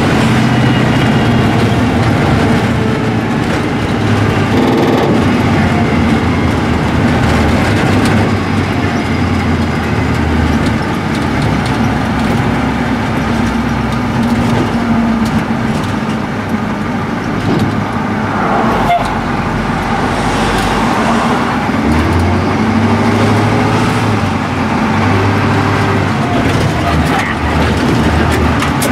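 Engine and cab noise of a 1987 Ford C-Series garbage truck, heard from inside the cab while driving. The engine's low rumble rises and falls in pitch, with a single sharp knock about 19 seconds in.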